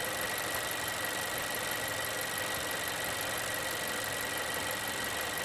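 2018 Honda Accord's transverse-mounted engine idling steadily, with a thin high whine held over it.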